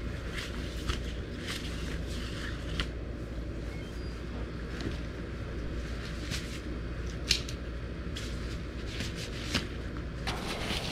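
Scattered sharp clicks and rattles from the metal frame of a pop-up canopy as it is set up, with some rustling, over a steady low rumble.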